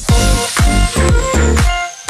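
Electronic dance music: a beat with a low kick about twice a second and sustained synth chords comes in right at the start, with a faint high tone slowly falling above it.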